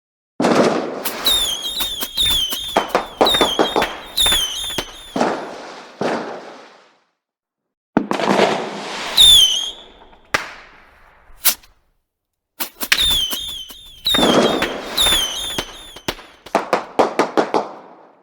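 Fireworks going off in three bursts of rapid, sharp cracks and bangs, with short whistling tones that dip and rise repeated through the first and last bursts. Each burst stops abruptly.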